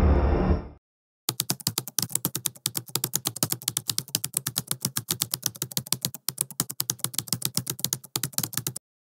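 Dark ambient music fades out within the first second. After a short gap comes a typing sound effect: a fast, even run of key clicks with a few brief pauses, stopping just before the end.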